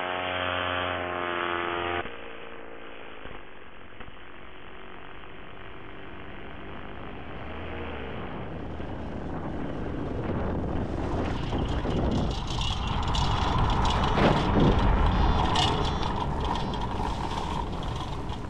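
Paramotor trike's engine running, then cut off sharply about two seconds in. After that comes wind rush, and then the trike's wheels rolling and rattling over a gravel strip after touchdown, growing louder and crunchier toward the last third.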